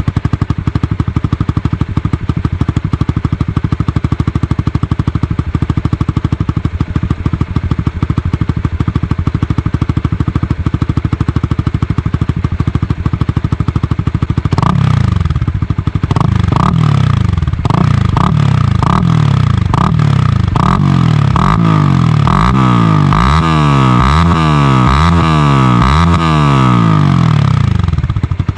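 Honda Supra GTR 150's single-cylinder 150cc engine breathing through a VMAX GP-type straight-pipe full exhaust with the silencer fitted. It idles steadily, then from about halfway is revved up and down again and again, with quick throttle blips near the end before it settles back to idle. The exhaust note is crisp even with the silencer in.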